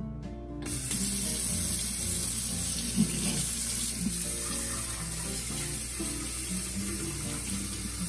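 Kitchen faucet turned on about a second in, its stream running steadily into a glass jar being rinsed and splashing into a stainless steel sink.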